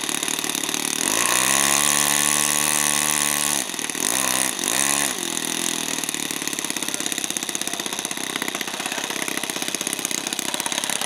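Small model airplane engine idling. About a second in it is throttled up and held at a higher pitch for a couple of seconds, then blipped twice quickly, and it drops back to a steady idle.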